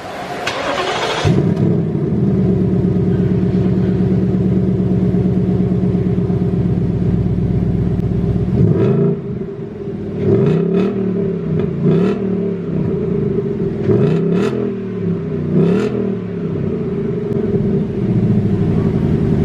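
Ford Mustang's 5.0 V8 cold start. The engine catches about a second in and settles into a steady fast idle. About halfway through it is revved four times, the pitch rising and falling with each blip, then it returns to idle.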